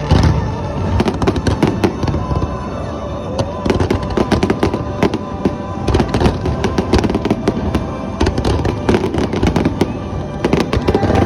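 Fireworks going off: a dense run of bangs and crackles, with a loud boom at the start, over music playing.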